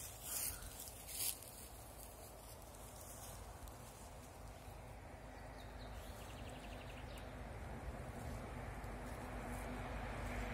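Motor vehicle engine hum with a steady low tone, growing gradually louder as it approaches. A few short rustles or steps in the first second or so.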